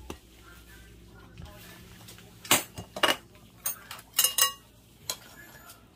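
Metal utensil clinking against an air fryer basket and a ceramic plate while fried pork cutlets are lifted out: about half a dozen sharp clinks with a brief ring, coming in the second half.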